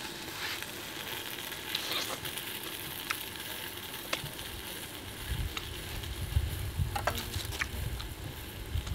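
Steady sizzling hiss from chicken cooking in a very hot clay pot, with a few sharp clicks of metal tongs. A low rumble comes in over the second half.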